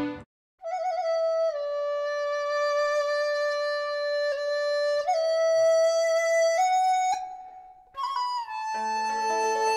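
Background music: a slow solo melody of long held notes that fades out about seven seconds in, then a fuller passage with several notes sounding together starts about a second later.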